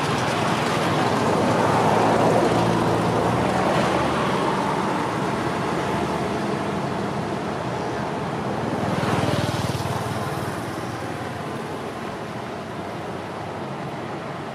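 Steady traffic noise: a motor vehicle's engine hum, swelling about two seconds in and again around nine seconds.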